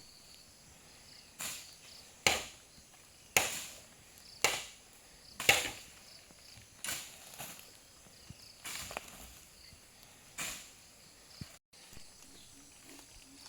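Repeated chopping strikes on wood, about ten sharp cracks at an uneven pace of roughly one every second or so, the loudest in the first half.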